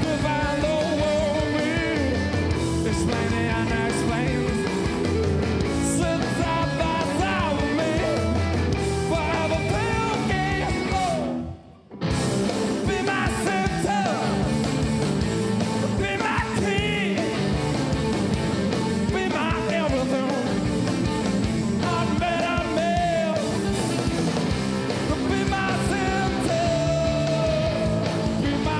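A rock band plays live with a sung lead vocal over electric guitars, bass guitar and a drum kit. About twelve seconds in, the whole band stops dead for about half a second, then crashes back in.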